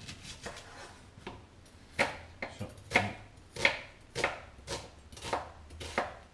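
Large kitchen knife chopping a red onion on a wooden cutting board: a run of sharp knocks of the blade on the board. They are light at first, then firmer and evenly paced at about one and a half strokes a second from about two seconds in.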